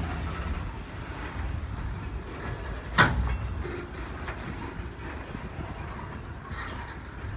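Loaded freight flatcars rolling slowly past: a steady low rumble of wheels on rail, with one sharp bang about three seconds in.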